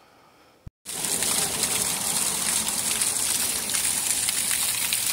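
A short click, then a steady rush of falling or gushing water that starts abruptly about a second in.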